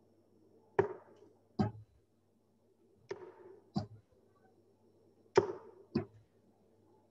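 Six steel-tipped darts thudding into bristle dartboards, in three pairs a little under a second apart, over a faint steady hum.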